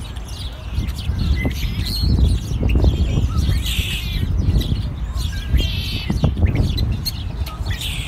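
A flock of dark songbirds perched in a bare tree, calling in a varied mix of chirps, whistles and squawks, with a buzzy rattling call repeated about every two seconds. A steady low rumble runs underneath.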